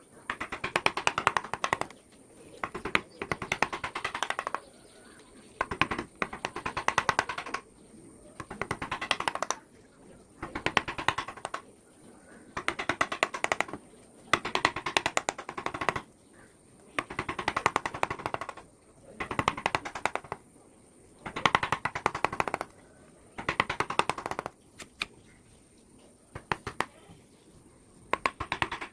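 Hand carving tool working teak wood in repeated short bursts of rapid ticking and scraping, each about a second long, with brief pauses between strokes.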